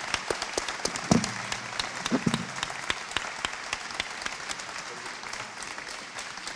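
Audience applauding, the clapping thinning out over the last few seconds, with a couple of short voice sounds in the first few seconds.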